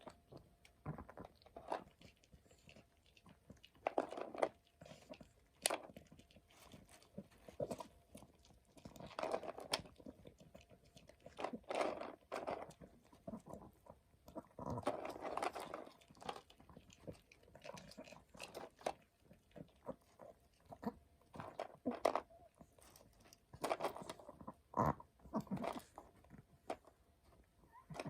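A dog chewing a crunchy homemade treat: irregular crunches and bites, some louder clusters, with short pauses between.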